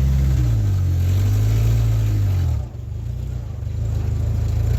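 1956 Willys Jeep CJ5's F-head four-cylinder engine pulling away in gear. Its note holds, then falls away with a brief dip in level about two and a half seconds in, before it runs on.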